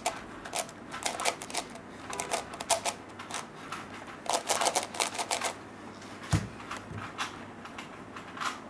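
Plastic layers of a pillowed 4x4x4 puzzle cube clicking and clacking in quick irregular clusters as they are turned by hand. A single dull thump comes about six seconds in as the cube is set down on the table.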